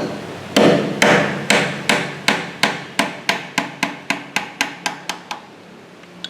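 Hammer striking a tool to knock the housing off a Vespa VBB steering lock: a run of about sixteen sharp blows that come faster and grow quieter, stopping about five seconds in.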